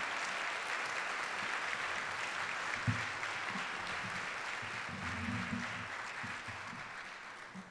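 Audience applauding the announced award winner, the clapping dying away near the end.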